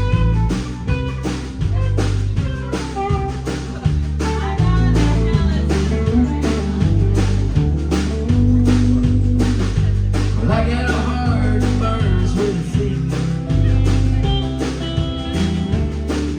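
Live country band playing an instrumental break between chorus and verse: a steady drum beat under bass and guitars carrying the melody.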